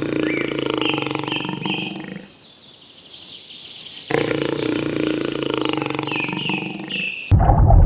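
A large animal's long, low call, heard twice with a short pause between, with small birds chirping over it.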